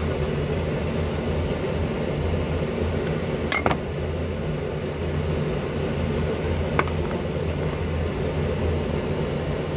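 Kitchenware clinking: a quick double clink about three and a half seconds in and a single clink near seven seconds, over a steady low hum.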